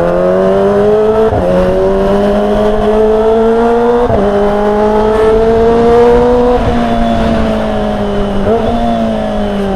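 Kawasaki Ninja ZX-25R's 250 cc inline-four engine, heard from the saddle while riding, through an aftermarket exhaust. The note climbs gradually in each gear, broken by a short blip at each shift every two to three seconds, then eases off and drops in pitch near the end.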